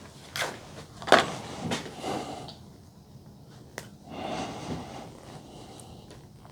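A few sharp clicks and soft handling rustles, the loudest click about a second in, as a plastic T-tap wire connector is worked onto a wire.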